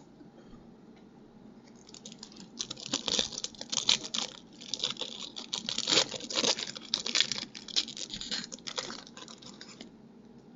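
Trading card pack wrapper being torn open and crinkled as the next pack is opened: a dense run of rapid crackles that starts about two seconds in and stops shortly before the end.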